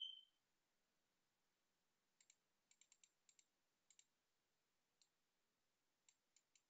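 Near silence with faint computer mouse clicks, about a dozen scattered over a few seconds and often in quick pairs. A brief high tone sounds right at the start.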